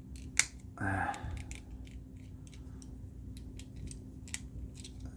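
Small plastic parts of a transforming robot figure clicking and snapping as they are folded and pegged together, with one sharp snap about half a second in.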